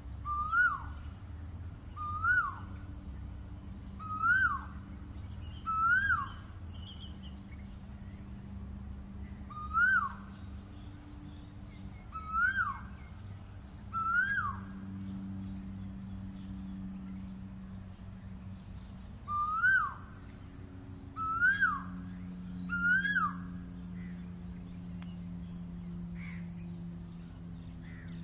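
Asian koel calling: a loud, sharply rising whistled note repeated about every two seconds, ten times in all, with a pause of a few seconds in the middle, over a steady low background hum.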